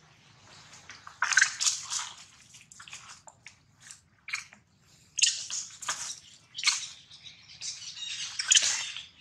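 Dry fallen leaves rustling and crackling under macaques moving about, in irregular short bursts, loudest about a second in, around the middle and near the end.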